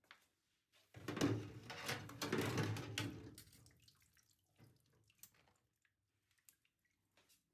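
Water running from a tap into a sink for about two and a half seconds, starting about a second in, with a few light knocks scattered before and after.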